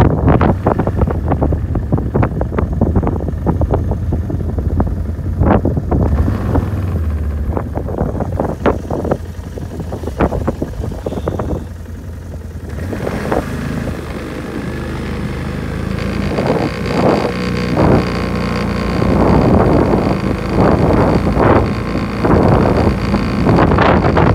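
Strong wind gusting across the microphone: a heavy low rumble broken by irregular crackling thumps. About two-thirds of the way through, a faint steady high whine joins it.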